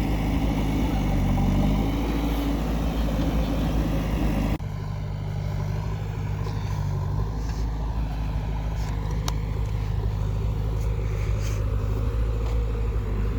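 Heavy diesel engine running steadily at work. The sound changes abruptly about four and a half seconds in, becoming less bright, while the low engine note carries on.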